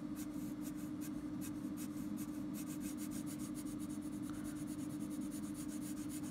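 Pencil crayon scratching on paper in many quick back-and-forth shading strokes, laying dark tone down the edge of a sketch, over a steady low hum.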